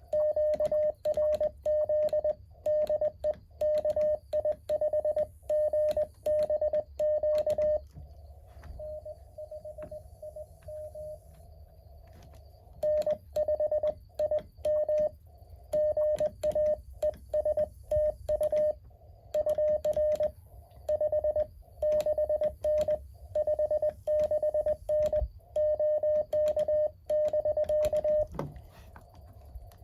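Morse code from a Mountain Topper 4B QRP transceiver: a steady mid-pitched tone keyed in quick dots and dashes, with clicks along the keying. The loud stretches are the sending sidetone, and a quieter stretch of incoming Morse comes from about eight to twelve seconds in.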